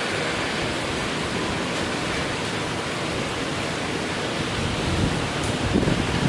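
Strong typhoon wind rushing steadily with rain. Gusts buffet the microphone with low rumbles near the end.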